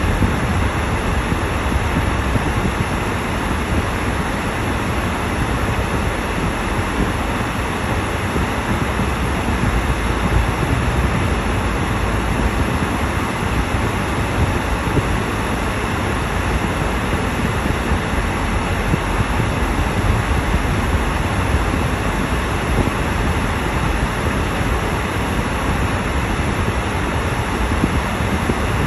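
Car driving on a wet, slushy, snow-covered road, heard from inside the cabin: a steady rumble of tyres and engine with road hiss.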